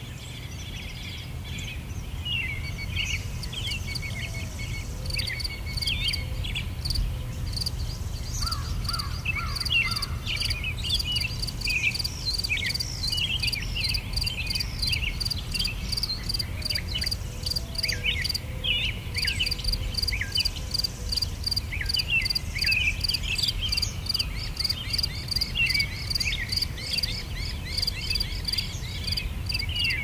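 Birds singing with many short chirps and whistles, while an insect chirps in a fast, regular pulse that starts a few seconds in and pauses briefly midway, over a steady low rumble.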